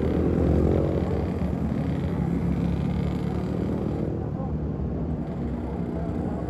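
Bus diesel engine pulling up a hill, a steady low drone with a pitched hum that slowly fades as the bus moves away.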